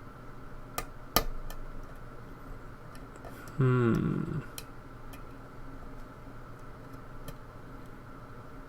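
Pick and tension wrench working the pins of a pin-tumbler lock: a few sharp metallic clicks in the first second or so, then scattered faint ticks as the pins are probed. About three and a half seconds in, a short hum from the picker.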